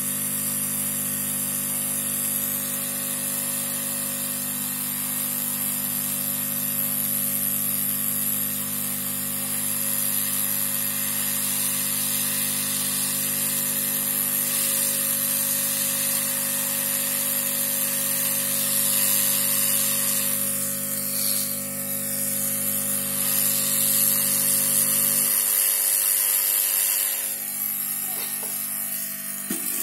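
Hot-air rework station blowing a steady hiss of hot air while MOSFETs are being fitted to the motherboard. A steady low hum runs underneath and cuts off suddenly about 25 seconds in.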